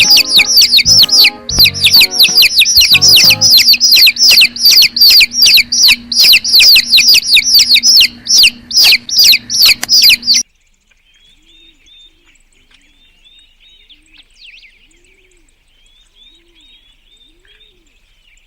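A bird chirping loudly and fast, a quick run of short downward chirps, about four or five a second, with music under it. About ten seconds in it cuts off suddenly to faint, scattered chirps and a few soft low calls.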